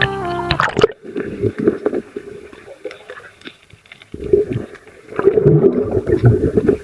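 Muffled water sloshing and gurgling around a camera sealed in a waterproof case. It comes in two loud stretches with a quieter lull in the middle.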